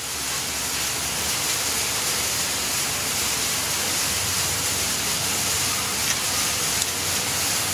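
Steady, even hissing noise with no distinct knocks or clicks.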